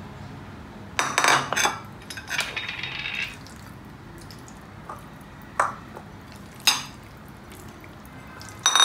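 Glass mixing bowls clinking and knocking against each other and the stone counter while raw chicken pieces are handled and coated in flour: a handful of sharp clinks with short ringing, a cluster about a second in and single ones later, with a soft rustle between.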